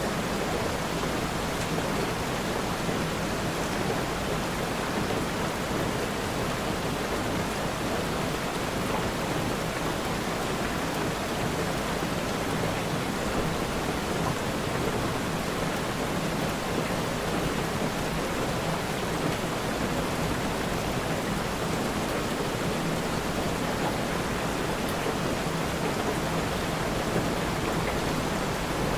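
Steady rain, an even hiss with no single drops or thunder standing out.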